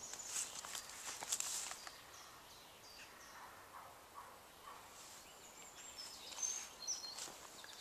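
Faint birdsong: short high chirps and whistles, clustering in the second half, with a few footsteps on the path about a second in.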